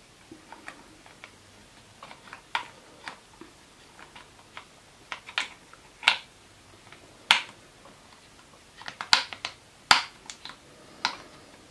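Irregular sharp clicks and taps of hard plastic as a hand works a lever back into place on an electric scooter's handlebar, the louder clicks coming in the second half.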